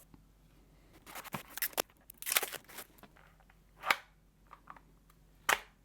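Small plastic cleaning-kit parts being handled: a few scattered clicks and short rustling scrapes, with the loudest bursts about two seconds in, near four seconds and near the end.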